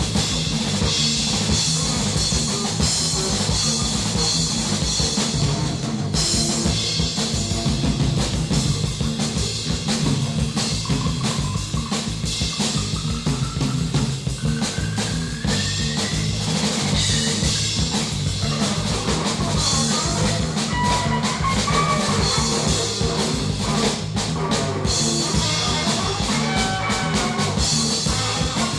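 Noise-rock band music: a drum kit with bass drum beating a steady, driving rhythm under a dense, noisy wash, with a tone sliding upward midway.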